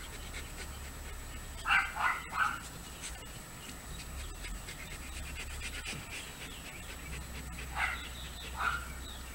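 German Shepherd giving short yips while lying on its back being rubbed: three in quick succession about two seconds in and two more near the end.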